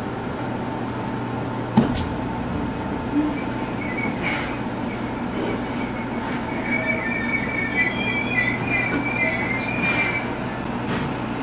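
Train running slowly on the rails, heard from the cab, with a steady low hum and a single sharp click about two seconds in. From about four seconds in, high wavering wheel squeal sets in and grows strongest later on.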